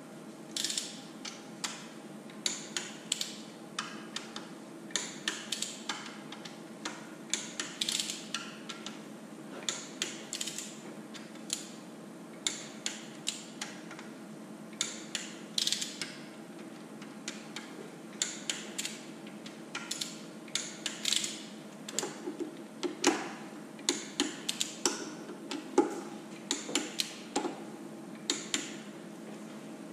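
Hand ratchet and torque wrench clicking in short runs of quick clicks as the flywheel housing bolts on a Detroit 3-53T are torqued down. The clicks come a little louder and heavier in the last third, over a faint steady hum.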